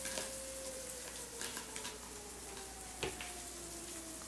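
Fire department siren in the background, its steady tone starting to wind down about half a second in and sliding slowly lower in pitch. A single sharp click comes about three seconds in.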